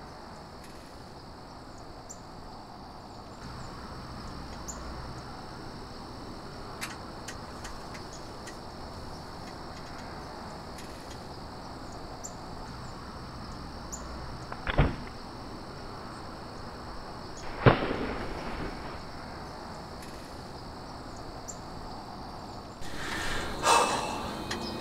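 Crickets chirping in a steady high drone, broken by a bow shot at a deer: two sharp thumps about three seconds apart, the second the louder. Louder rustling starts near the end.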